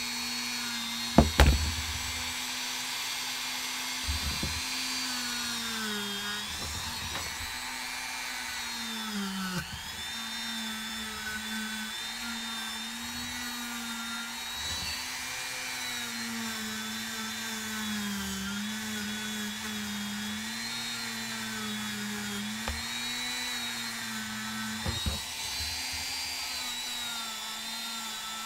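Small rotary tool running a wire brush against a steel screw to clean off rust and dirt. Its motor hum sags in pitch and recovers again and again as the brush is pressed in. There is a sharp knock about a second in and a lighter one near the end.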